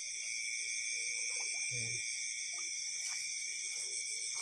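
Steady, high-pitched chorus of night insects, continuous throughout, with a few faint clicks and knocks of handling.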